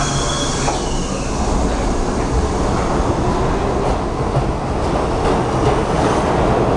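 R68 subway train pulling out of the station and gathering speed past the platform: a steady rumble of motors and wheels on rail, growing slowly louder.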